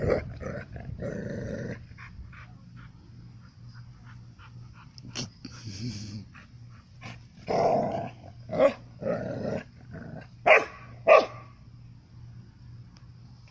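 Puppies growling as they play-wrestle, in irregular outbursts, with short barks; two sharp barks come close together near the end.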